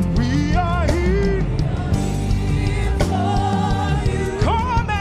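Live gospel worship music: a band playing with sung vocal lines over it.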